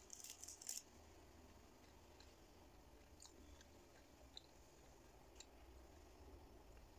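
Very quiet eating sounds: a brief crisp crackle just after the start, then a few faint clicks of chewing.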